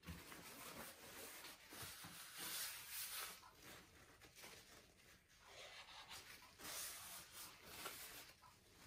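Faint rubbing and rustling of a paper towel wiping the rim of a silicone soap loaf mold, coming in a few soft swells.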